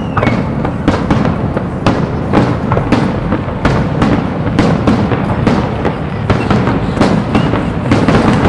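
Fireworks display: a dense, uneven run of aerial shell bursts, with sharp bangs and crackles several times a second over a continuous low rumble.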